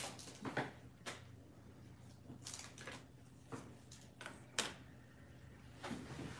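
Faint, scattered clicks and taps of small objects and packaging being handled and set down on a tabletop during a figure unboxing, about ten irregular taps over several seconds.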